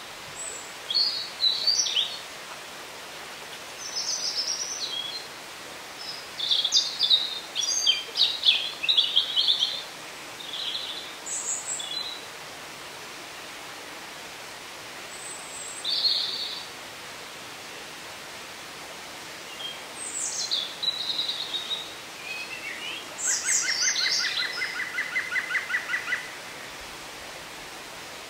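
Woodland songbirds singing in short high phrases that come and go with pauses between. Near the end one bird gives a fast trill of repeated notes, about five a second, for a few seconds. A steady soft hiss of background noise lies underneath.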